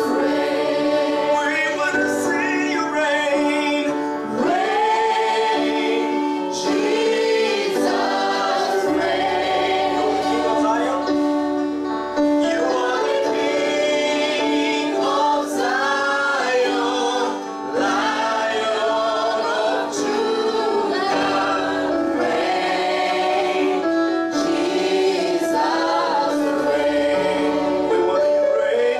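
Live gospel worship singing: a church worship team of women's and a man's voices singing together into microphones over a steady held accompaniment.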